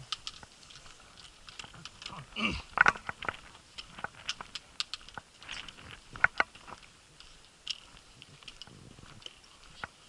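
Footsteps crunching on a dry gravel path, with irregular clicks and taps, some sharper than others.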